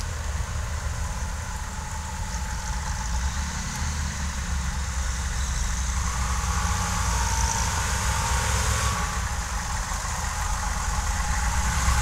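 Humvee V8 diesel engine running low and steady at a crawl through mud, growing louder toward the end as the vehicle comes closer.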